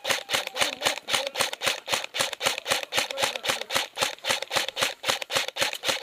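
Airsoft gun firing continuously on full auto: a rapid, even rattle of about seven shots a second.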